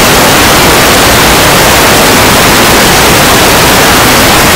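Loud, even static hiss across all pitches, with no voice or other sound through it: a burst of noise in the recording that drowns out the speech.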